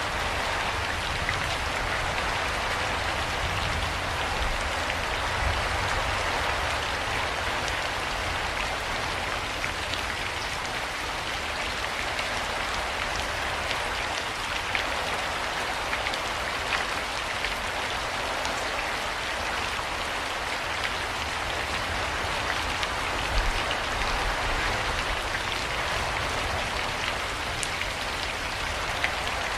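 Steady rain falling, a continuous hiss with many small drop ticks and a faint low rumble underneath.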